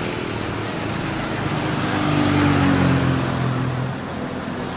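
A motor vehicle driving past on the road: its engine hum and tyre noise swell about two seconds in, then fade near the end.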